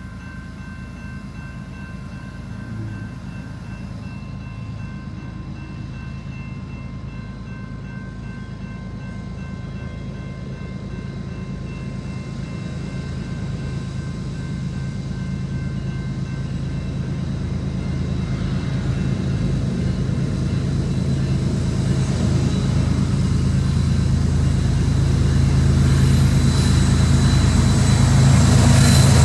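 Diesel locomotives of a Canadian National freight train approaching, their low engine drone getting steadily louder as the train nears and reaches the crossing near the end.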